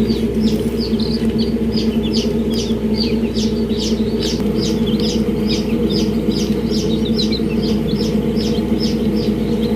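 A brood of newly hatched chicks peeping continuously, many short high cheeps falling in pitch, several a second, over a steady low hum.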